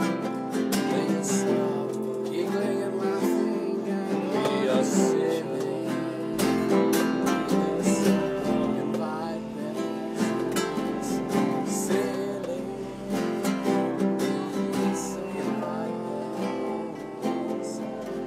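Background music of strummed acoustic guitar.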